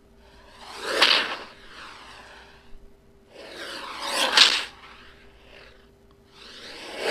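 Three whoosh sound effects about three seconds apart, each swelling to a peak and dying away, like something flying past at high speed. A faint steady tone hums underneath.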